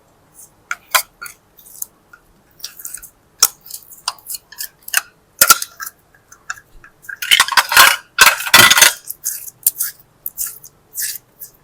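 Small hard objects clicking and clinking: irregular sharp taps, with a denser, louder run of crackly clicks about seven to nine seconds in.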